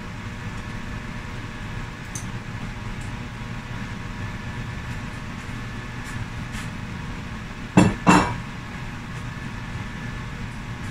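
Steady kitchen hum throughout, with two sharp clattering knocks about eight seconds in, a fraction of a second apart.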